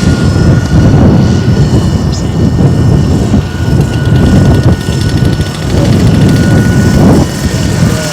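Radio-controlled scale model helicopter flying, with a steady high whine, heavily overlaid by loud wind buffeting on the microphone.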